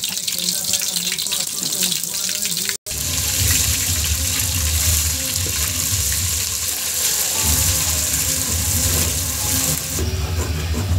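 A paste sizzling and spitting in hot oil in an aluminium pot while a metal spoon stirs it, over a steady low rumble. The sound cuts out for an instant about three seconds in.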